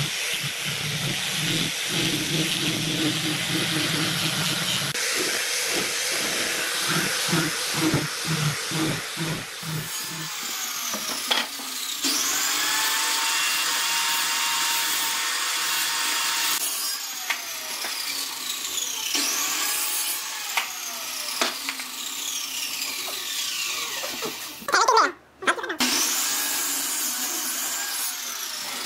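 Power woodworking tools cutting and shaping wood in several short takes. The tool's tone repeatedly sweeps down in pitch.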